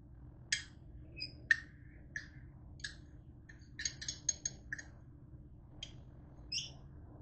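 A spoon clinking and scraping against the inside of a mug as a thick mayonnaise-and-mustard mixture is spooned out: about a dozen short, irregular clicks and taps, the loudest about a second and a half in.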